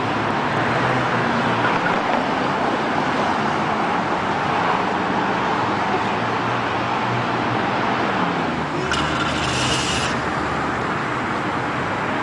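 Road traffic and car engines, a steady noise, with a brief hiss lasting about a second about nine seconds in.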